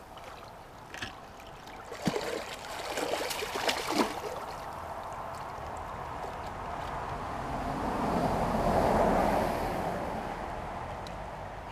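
River water splashing and trickling, with a few sharp splashes in the first four seconds and a rushing noise that swells and fades around eight to nine seconds in.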